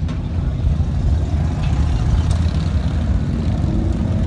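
Steady low engine rumble of motor vehicles running.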